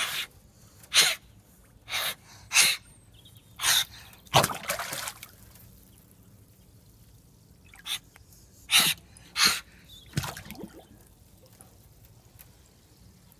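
Eurasian otter at the water surface giving about ten short, sharp huffs, five in the first four seconds and four more after a pause of a few seconds. A longer, splashy burst comes about four seconds in as it surfaces beside a boat's hull.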